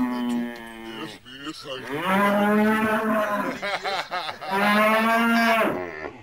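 Hereford cattle mooing in long, drawn-out calls. The end of one call is heard at the start, then two more calls of about a second and a half each, roughly a second apart.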